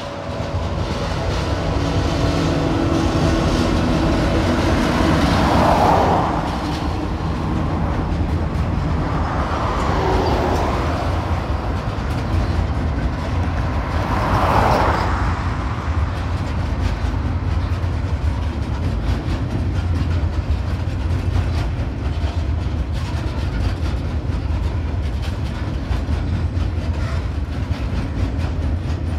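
Diesel freight train hauling loaded log wagons over a highway bridge: a steady heavy low rumble of wagons rolling over the bridge, with the locomotive's engine note in the first few seconds. Cars pass along the road below, each a rising and falling whoosh, about 6, 10 and 15 seconds in.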